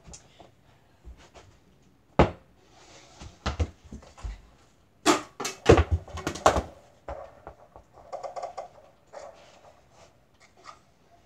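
A string of sharp knocks and thumps from a mini basketball hoop and the hollow interior door it hangs on being struck, with the busiest cluster about five to seven seconds in.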